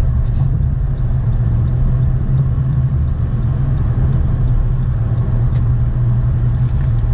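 Steady low rumble of a car's engine and tyres at highway cruising speed, heard from inside the cabin.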